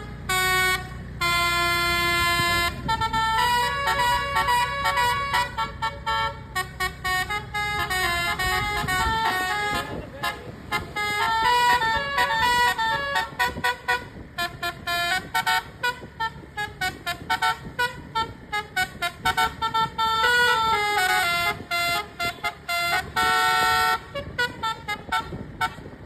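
Telolet bus horn: a bus's set of musical air horns playing quick stepping melodies, note after note in phrases with short breaks between them. A low rumble runs underneath until about nine seconds in, then stops.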